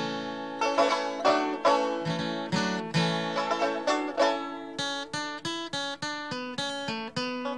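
Banjo music with guitar, bright plucked notes; in the second half the picking settles into an even run of quick notes.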